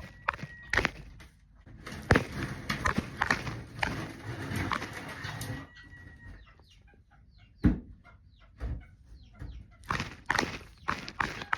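Chickens clucking among many short scratching, pecking and rustling noises, with a dense stretch of rustling in the middle.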